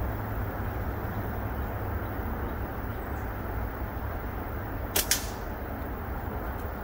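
A slingshot shot from a Prime Fork Hooligan slingshot with Snipersling .5 flat bands. About five seconds in there are two sharp cracks a split second apart: the bands snapping forward on release and the shot striking the target can. A steady low outdoor rumble runs underneath.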